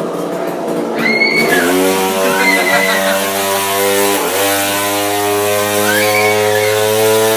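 Chainsaw's small two-stroke engine running steadily at a constant speed, with a brief dip about halfway through; short, high, wavering sounds come and go over it.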